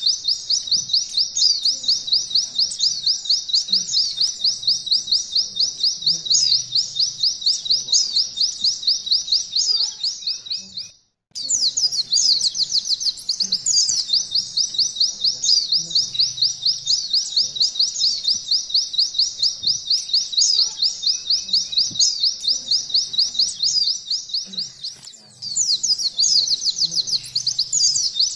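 White-eye (pleci) singing a long, fast, high-pitched trill of rapidly repeated notes in canary style ('nembak ngalun'). The song breaks off abruptly about eleven seconds in, resumes half a second later, and falters briefly near the end.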